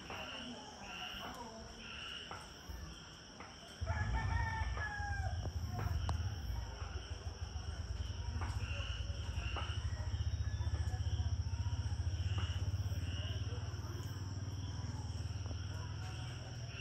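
A rooster crows once about four seconds in, a call that rises then falls over about a second and a half. At the same moment a loud, steady low rumble sets in and carries on, under repeated high chirps and a steady high-pitched whine.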